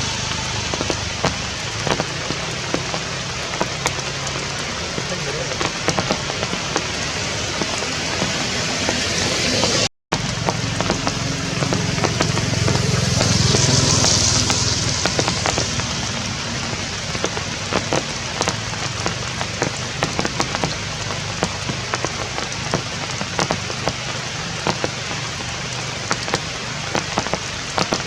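Steady rain falling, with the patter of many individual drops. The sound cuts out completely for a moment about ten seconds in.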